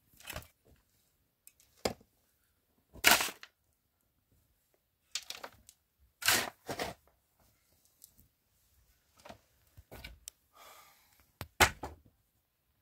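Shovel digging into a dry dirt floor and tossing the soil, in separate scraping strokes every second or two.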